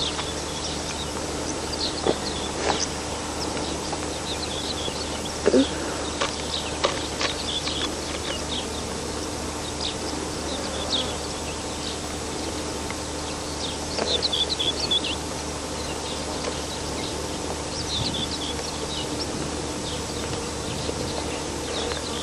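Rural outdoor ambience: scattered short, high chirps of small birds over a steady background hiss and hum. One brief louder, lower sound about five and a half seconds in.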